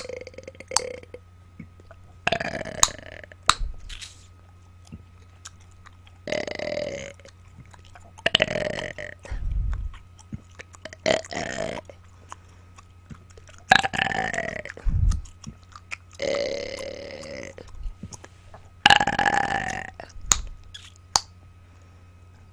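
A woman burping on command: about seven long, drawn-out air burps, each roughly a second long and coming every two to three seconds, with small mouth clicks between them.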